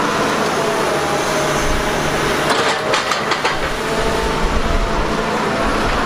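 Large tracked excavator with a rock grab running, a steady engine noise, with a few sharp knocks about two and a half to three and a half seconds in.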